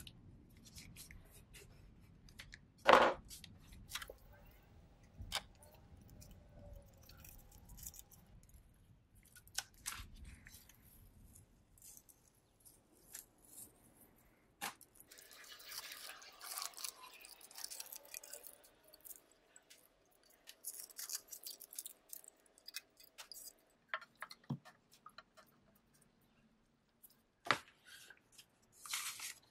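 Gloved hands handling a painted metal tin, with scattered clicks and taps, the loudest a sharp click about three seconds in. From about halfway, masking tape is peeled off the painted surface with a soft rustling tear.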